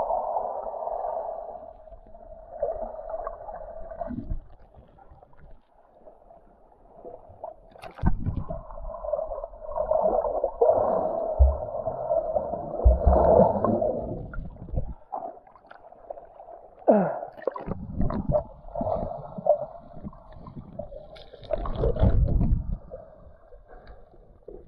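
Muffled churning and gurgling of river water heard with the microphone under the surface, with a few dull knocks.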